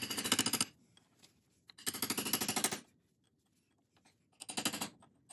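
Hand tool clicking rapidly in three short bursts of under a second each, at about fourteen clicks a second.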